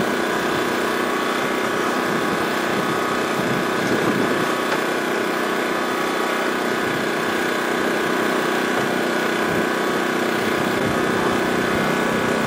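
A small engine running steadily, an even drone that does not change.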